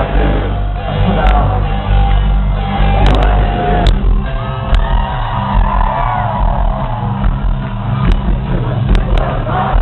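Rock band playing live to a festival crowd, with singing and shouts from the audience over the music. Recorded from within the crowd: loud and muffled, with heavy booming bass.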